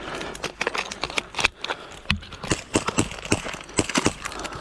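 Fast, irregular knocks and thuds of running footsteps, several a second, with gear knocking along.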